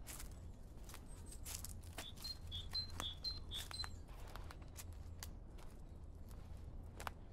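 Footsteps crunching and clicking on a countryside path, with a small bird giving a quick series of high chirps from about two to four seconds in.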